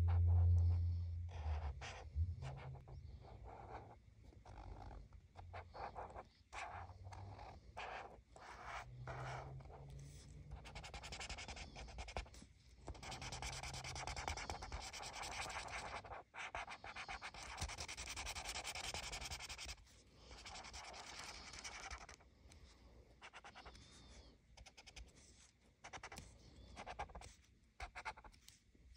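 Felt-tip marker scratching across paper through a stencil: short separate strokes at first, then a long stretch of rapid back-and-forth scribbling in the middle as the star is filled in, then short strokes again. A brief low rumble at the very start.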